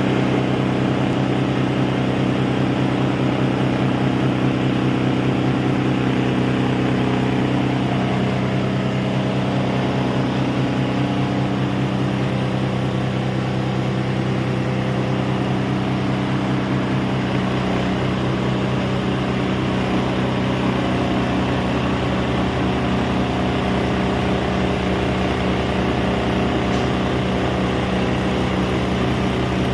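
A multipurpose grinding mill for rice husk, corn and bran running steadily: a loud, even machine hum with a slight shift in its tones about eight seconds in.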